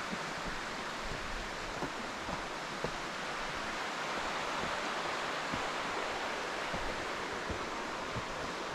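Steady rush of a creek flowing beside the trail, with faint footsteps on the dirt path ticking about once a second.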